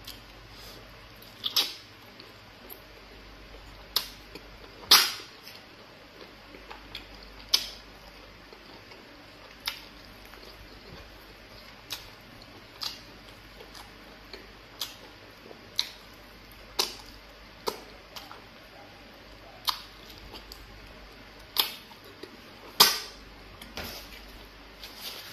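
Close-up mouth sounds of eating fufu and egusi soup by hand: sharp, wet smacks and clicks at irregular intervals, roughly one every second or two, with a couple much louder than the rest.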